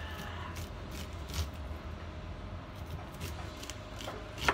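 Kitchen knife slicing kernels off an upright corn cob on a wooden cutting board: a few soft cuts and knocks scattered through, with a sharper knock near the end.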